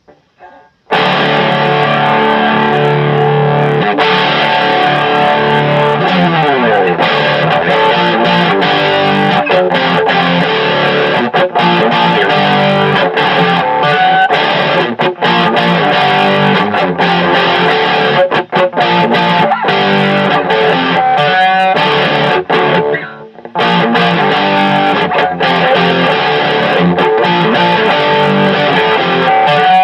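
Electric guitar played through a Joyo DC30 guitar amplifier in continuous loud chords and notes. The pitch slides downward about six seconds in, and the playing briefly drops out near the twenty-three-second mark.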